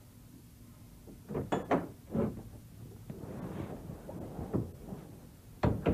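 Door sounds: a quick cluster of sharp clunks about a second and a half in, a softer rustle in the middle, and one loud clunk near the end.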